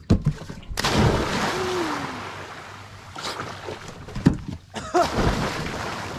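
A person jumping into the water: one big splash about a second in, then the water churning and sloshing as it settles, with smaller splashes after.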